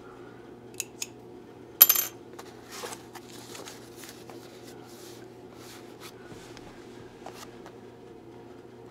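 A small cardboard shipping box being handled on a wooden table. Two light clicks, then about two seconds in a sharp metallic clink that rings briefly, followed by a few seconds of soft cardboard rustling and scraping.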